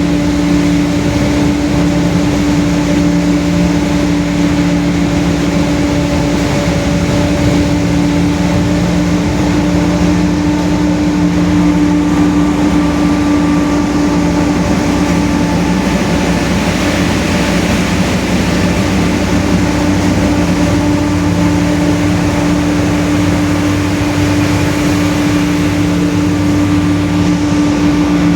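Rear differential of a Mercedes-Benz OF-1721 city bus howling very loud: a steady whine that holds one pitch, over the bus's running noise.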